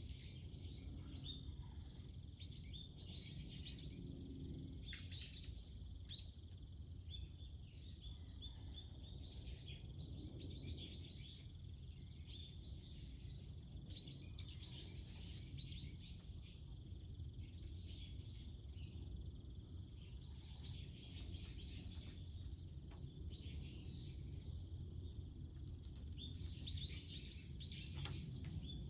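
Wild birds chirping and calling in short bursts every few seconds, over a steady low rumble of outdoor background noise.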